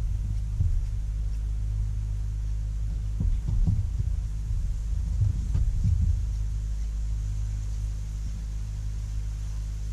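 Steady low hum of a boat's motor, carried through the deck to a camera mounted on the bow, with a few dull knocks on the deck about three and a half and five and a half seconds in.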